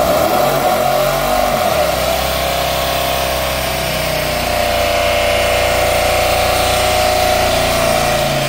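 C4 Corvette's V8 held at high, steady revs during a burnout, the rear tyres spinning on concrete.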